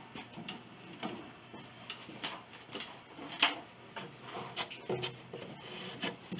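Hands handling loose wooden pieces and wood chips: scattered light clicks, knocks and scrapes, with one sharper knock about three and a half seconds in.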